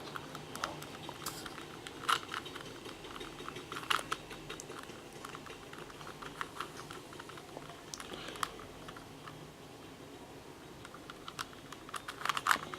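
A plastic 3x3 Rubik's Cube being turned by hand, its layers clicking and clacking as they rotate. The clicks come in an uneven run, with louder clusters about two and four seconds in and near the end.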